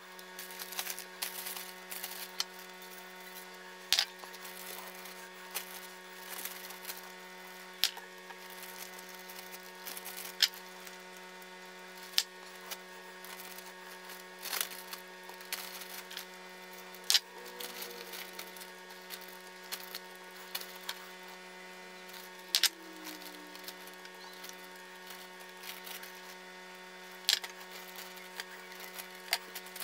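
Irregular sharp clicks and taps from handling a plastic bag, a seasoning bowl and raw pork strips at a tiled kitchen counter, about one every few seconds, over a steady low hum.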